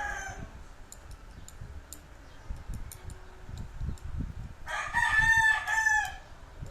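A loud pitched animal call, a crowing call lasting about a second and a half, comes about five seconds in, with the end of another such call at the very start. Between the calls, faint light clicks of chopsticks tapping.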